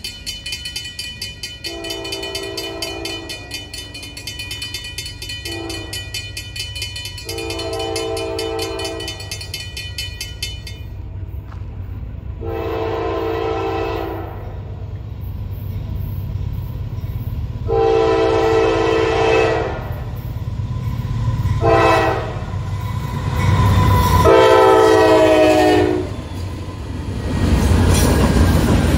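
Diesel freight locomotive's air horn sounding long and short blasts as the train approaches a grade crossing. The last run is long, long, short, long, the crossing signal, and the final blast shifts in pitch as the locomotive nears. A bell rings rapidly for the first ten or so seconds, and the low rumble of the train builds until it is going by near the end.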